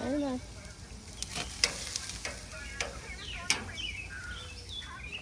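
Meat sizzling on a gas grill, with metal tongs clicking sharply against the grill grates several times. Birds chirp in the background.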